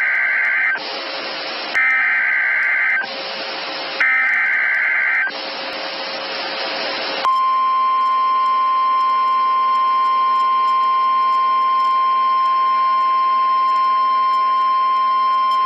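Emergency Alert System SAME header: three screeching digital data bursts of about a second each, separated by hiss. About seven seconds in, a steady single-pitch NOAA Weather Radio 1050 Hz warning alert tone starts and holds for about nine seconds, signalling the start of a severe thunderstorm warning.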